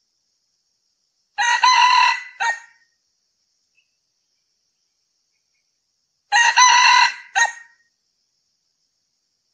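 Male red junglefowl crowing twice, about five seconds apart; each crow is short and ends in a brief, separate final note.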